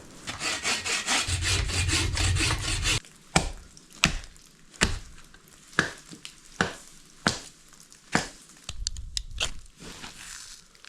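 A hand saw cutting wood in quick, even strokes for about three seconds. Then come about seven sharp knocks, a little under a second apart, and a shorter spell of sawing strokes near the end.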